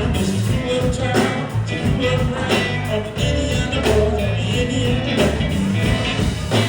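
Live rock-and-roll band playing, with bass, drums and guitar.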